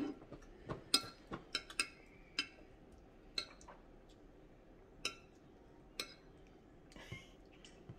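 Light clicks and clinks of a meal at the table, utensils and dishes or the sounds of eating: about ten single sharp ticks, scattered, with quiet between them.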